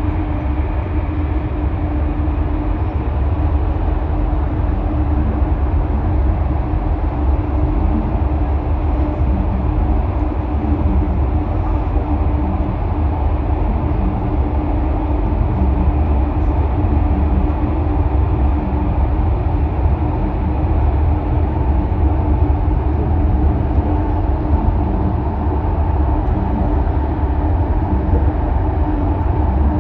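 Steady, loud drone of a ship's engines, a deep rumble with a constant hum over it, unchanging throughout.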